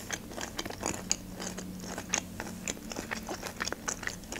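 Close-miked mouth chewing of crunchy food, many small irregular crackles and crunches.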